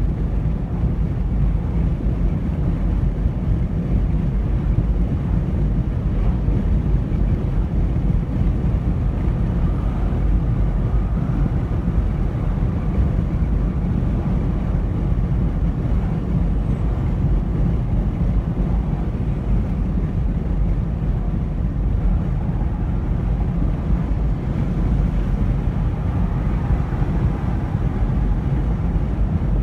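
Steady road noise of a car cruising at highway speed: tyre and wind noise, a deep, even rumble.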